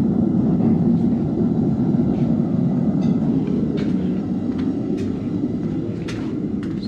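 Forge burner running with a steady roar, with a few sharp metal clinks in the second half.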